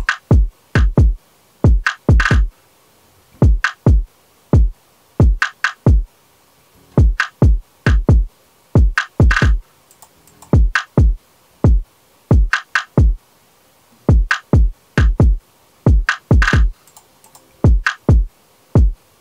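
Electronic drum loop playing back through a software compressor: deep kicks that drop in pitch and sharp snare hits in a syncopated beat, with nothing sounding between the hits. It is being A/B-compared between FL Studio's Fruity Compressor and Kit Plugins' Core Compressor.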